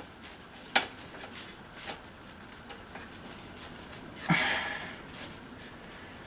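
Light metal clinks and taps of hand tools tightening a spark plug into a lawnmower engine, with one sharp click a little under a second in and a short scraping rush about four seconds in.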